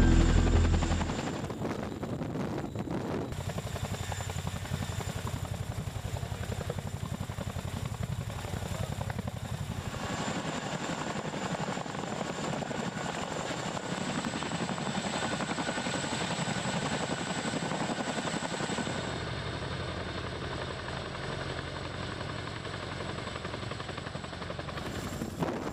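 Boeing CH-47 Chinook tandem-rotor helicopter hovering and flying close by: a steady noise of rotors and turbine engines, broken by abrupt cuts between clips. Music fades out about a second in.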